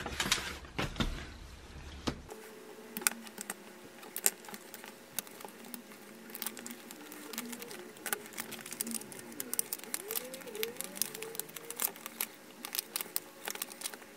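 Scattered light clicks and ticks of iron-on vinyl being weeded, the excess vinyl picked and peeled off its carrier sheet, over a faint steady room hum.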